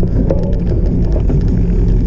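Loud, steady low rumble of wind buffeting the microphone, with small scattered clicks and rattles, as from a cyclocross bicycle ridden over rough ground.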